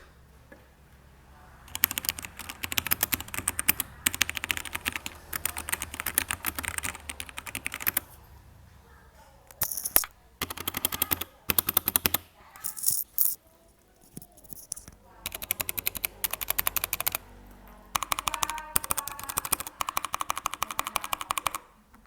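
E-DRA EK387 mechanical keyboard with Huano Brown tactile switches being typed on fast, in runs of rapid key clacks broken by short pauses.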